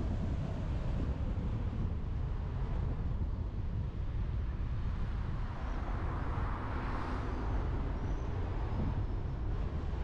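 Steady low wind rumble on a roof-mounted action camera's microphone, with road noise from the moving car. About six seconds in, a passing car's whoosh swells and fades.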